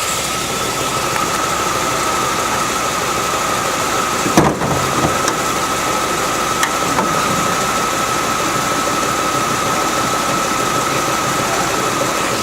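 1964 Ford Thunderbird's 390 V8 idling steadily, with a steady high whine over it. A single sharp clunk comes about four and a half seconds in.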